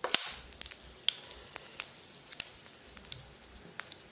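Fennel seeds tipped into hot oil with whole cinnamon and cloves: a short hiss as they land, then scattered light pops and crackles as the spices fry.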